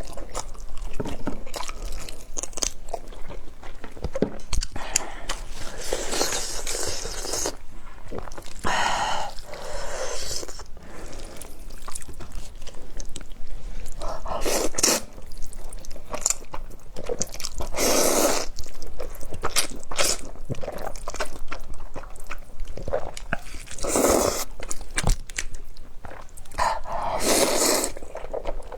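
Close-miked eating: a person chewing and biting stir-fried noodles and grilled chicken, with soft mouth sounds throughout and about six louder bursts, each about a second long.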